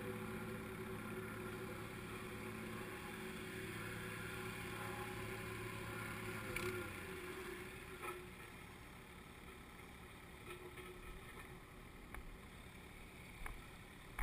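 Petrol engine of a plate compactor running steadily, then dying away and stopping about seven seconds in as compaction of the footpath base layer finishes. A few light knocks follow.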